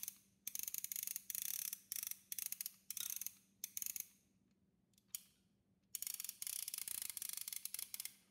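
Plastic toy fishing rod reel cranked by hand, its ratchet clicking rapidly in a string of short runs, with one longer run about six seconds in.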